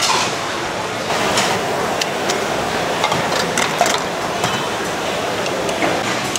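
Clinks and knocks of metal utensils and dishes at a hawker food stall, sharp and irregular, over the steady din of a busy food market.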